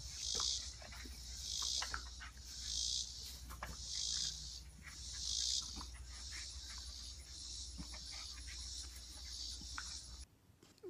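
Insect chorus buzzing in waves that swell and fade about once a second, evening out in the last few seconds, with a few faint ticks over a low steady rumble. It cuts off shortly before the end.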